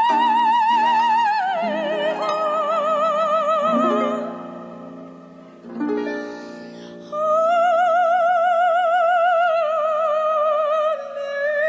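Operatic soprano singing long held notes with a wide vibrato over plucked harp chords. Midway the voice stops for a few seconds, leaving the harp softly alone, then comes back on a long sustained note.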